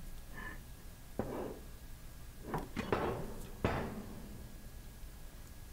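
Cast metal water chamber of an air-operated double-diaphragm pump being pulled off and handled: a few metal clunks and knocks with short ringing, the loudest between about two and a half and four seconds in.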